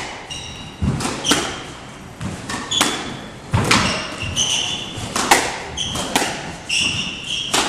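Squash rally: the rubber ball cracks off racquets and walls about once a second, each hit echoing in the court. Between the hits come short high squeaks of court shoes on the wooden floor.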